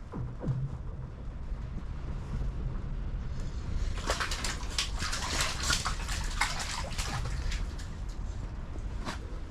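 Water sloshing and splashing, with a dense crackle of sharp clicks and splashes from about four seconds in to about seven and a half.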